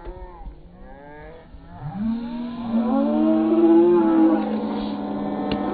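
Spectators yelling and cheering as a goal is scored. Several voices shout at once, swelling about two seconds in into long, drawn-out cheers.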